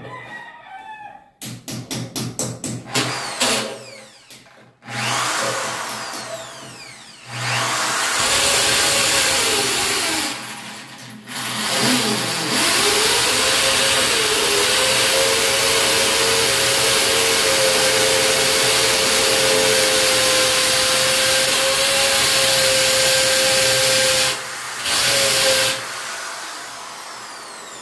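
Corded electric drill boring holes into a tiled wall. It starts with a string of short trigger bursts, then runs in long steady stretches. About twelve seconds in, the motor's pitch climbs as it spins up and then holds steady until it stops, with one brief burst near the end.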